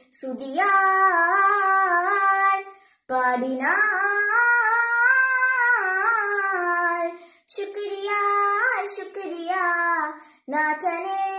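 A 12-year-old girl singing a nasheed solo in four long, gliding phrases, each separated by a short breath.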